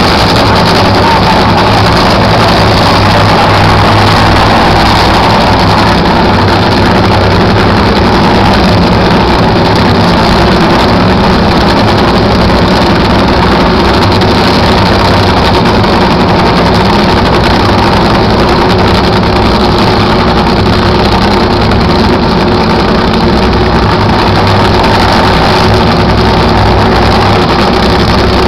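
Two nitro Funny Cars' supercharged nitromethane V8 engines idling at the starting line. They make a very loud, steady rumble that holds unchanged throughout.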